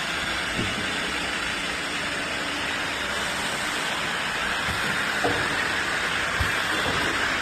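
CNC machine running at work, a steady hissing noise with no clear rhythm.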